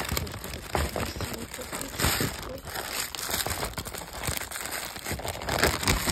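Plastic packets of flower bulbs crinkling and rustling as they are handled and unpacked, with many small irregular crackles.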